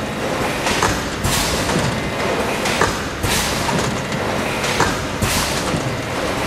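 GC 650-500 automatic plastic thermoforming machine running through its cycle: steady machine noise with a knock followed about half a second later by a burst of hiss, repeating about every two seconds, three times.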